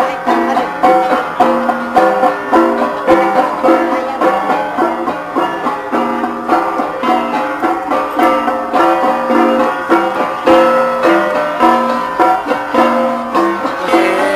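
Gangsa ensemble, the flat bronze gongs of the Cordillera, playing a steady, fast, repeating pattern of struck ringing strokes on several pitches.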